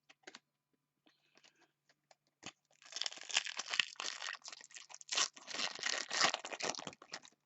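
Foil wrapper of a Topps Chrome card pack being torn open and crinkled: a few light clicks at first, then dense crackling from about three seconds in until just before the end.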